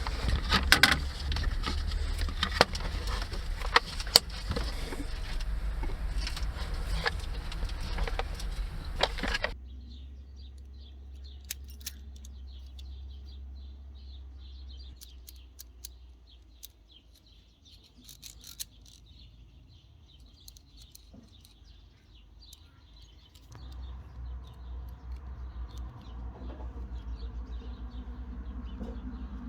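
Sharp metallic clicks and rattles from a small ratchet handle and its bits being handled, over a steady low hum. About nine seconds in this gives way to a much quieter stretch of faint high chirping with only a few isolated clicks; the low hum comes back near the end.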